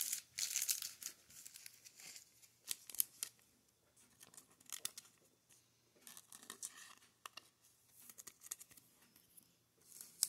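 Intermittent rustling and crinkling of trading cards and a clear plastic card sleeve being handled, with small clicks and taps, in short irregular bursts.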